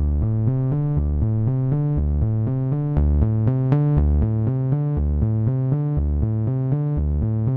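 Background electronic music: synthesizer notes over a steady drum-machine beat.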